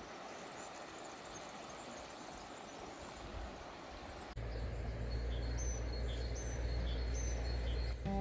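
Outdoor ambience: a faint steady hiss, then from about four seconds in a steady low rumble and a small bird repeating a short high chirp several times.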